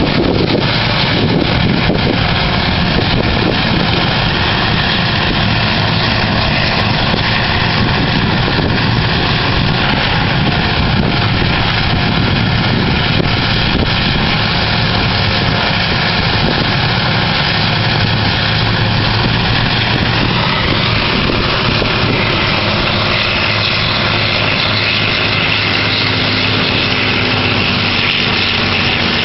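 Horizontal wood grinder and excavator working together: a loud, steady din of heavy diesel machinery.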